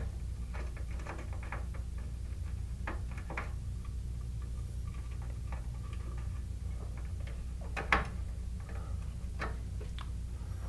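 Small scattered clicks and taps of a screwdriver and wires working at an alarm panel's screw-terminal strip as a wire is fastened down, with a sharper click about eight seconds in, over a steady low hum.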